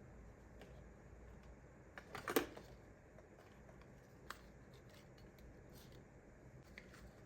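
Plastic toys being handled: a short clatter of clicks about two seconds in, then a single sharp click a couple of seconds later, over a faint room hum.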